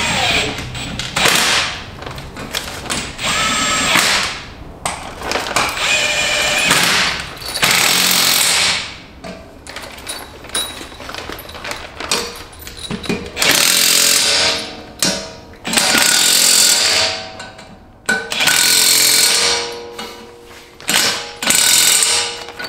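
Cordless impact driver hammering screws into a truck's steering spindle assembly, in repeated bursts of a second or two with short pauses between.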